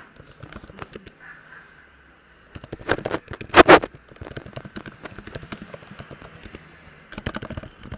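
Typing on a computer keyboard: irregular runs of key clicks, with a cluster of louder knocks a little over three seconds in.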